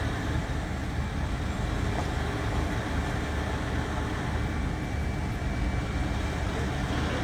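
Steady low rumble of idling heavy vehicles and passing street traffic.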